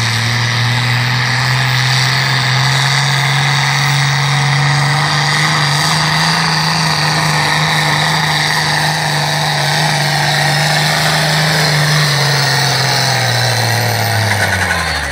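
Fiat 1000 tractor's diesel engine running flat out under heavy load as it drags a tractor-pulling sled, the exhaust pouring black smoke. The note holds steady and climbs slightly partway through, then falls away near the end as the pull finishes.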